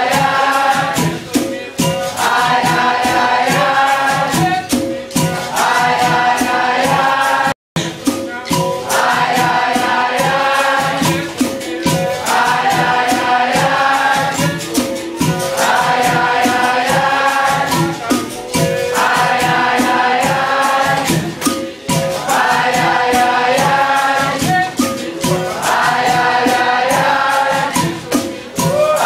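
Capoeira Angola roda music: a group sings call-and-response chorus lines over the bateria, with berimbaus, pandeiros and an atabaque drum keeping a steady rhythm. The sound cuts out for an instant about a quarter of the way in.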